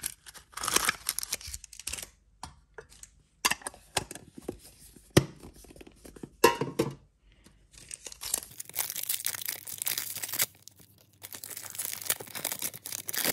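Handling and prising open a small metal card tin, with scattered sharp clicks and rustles, then a foil Pokémon booster pack being torn open, crinkling and ripping in two long stretches in the second half.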